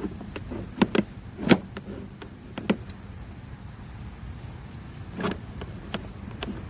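Scattered sharp clicks and knocks, about six of them, over a low steady hum.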